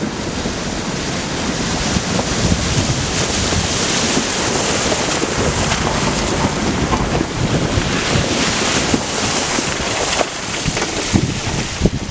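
Loud, steady rushing noise with wind buffeting the microphone.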